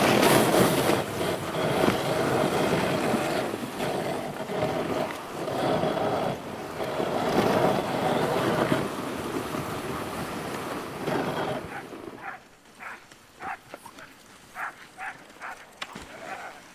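Rushing noise of wind and sled runners over snow as a husky team pulls a dog sled. After about twelve seconds it drops away, and dogs give a string of short, high yelps.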